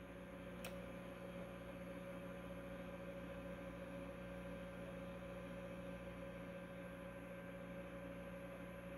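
Faint steady electrical hum from the radio bench equipment, while the CB radio and amplifier are held keyed into a dummy load with no one speaking (a dead key). A light click about a second in.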